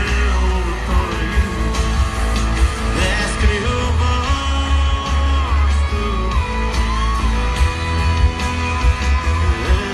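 Loud live country-rock concert music heard from within the crowd: a band playing with singing over heavy bass.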